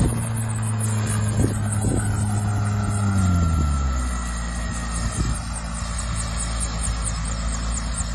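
Small homebuilt single-seat helicopter running on the ground with its rotor turning. About three seconds in, the engine note falls to a lower, steady idle.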